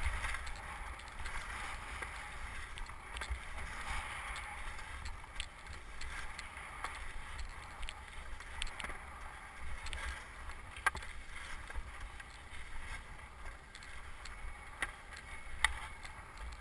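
Wind buffeting the microphone of a helmet-mounted camera, with skis scraping and sliding over wind-packed snow during a ridge traverse. A few sharp clicks stand out, the loudest about eleven seconds in and again near the end.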